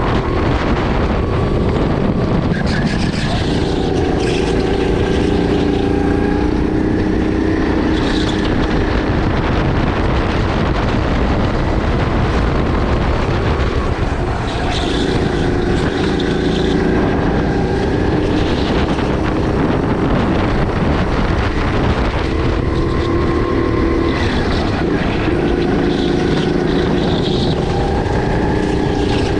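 Sodi RX8 rental kart's 270 cc LPG engine running hard on track. Its note drops and climbs again several times as the kart slows and accelerates, over a haze of wind and rushing noise.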